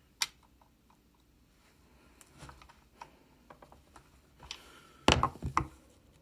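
Light scattered clicks of saw chain links on a chainsaw bar as the chain tension is adjusted, with a louder cluster of clicking rattles about five seconds in as the chain is lifted on the bar.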